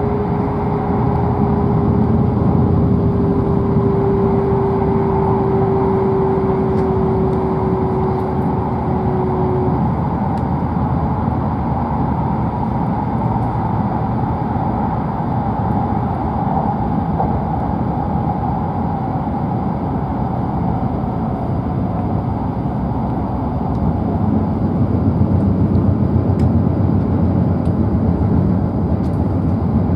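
Running noise inside the cabin of a W7-series Shinkansen at speed: a steady rumble. A single humming tone sinks slowly in pitch and dies away about ten seconds in.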